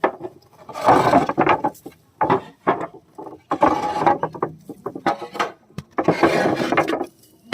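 Hard objects such as wood and clay tiles being shifted, knocked and scraped in a run of irregular clattering bursts, as a hiding place is cleared in search of a snake.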